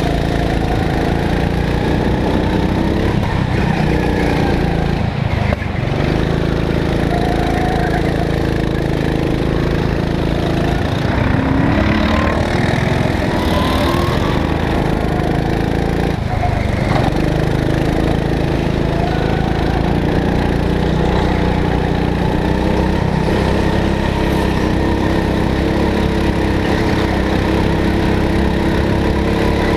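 Small go-kart engine running hard, heard from on board the kart, its pitch rising and falling with the throttle through the corners.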